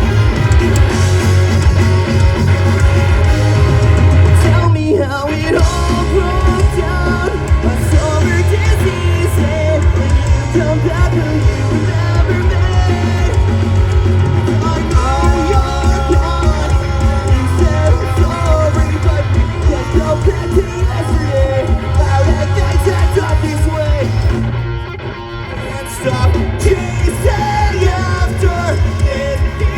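Live rock band playing at full volume: electric guitar, bass and drums with a singer's voice over them. The band drops back for about a second and a half about 25 seconds in, then comes back in full.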